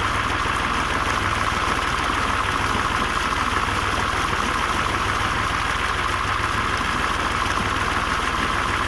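Swaraj 735 tractor's three-cylinder diesel engine running steadily at an even speed, with no change in pace.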